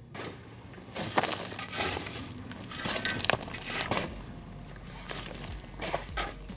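Dry, loose soil pouring and crumbling into a trench over buried PVC pipes in several rushes about a second apart, as the trench is backfilled.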